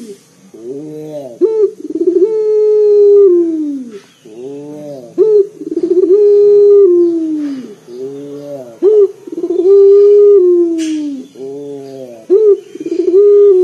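Barbary dove (Indonesian 'puter lokal') cooing in a loud, deep voice: about four repeated phrases, each a few short rising-and-falling notes followed by one long held coo that slides down in pitch at its end.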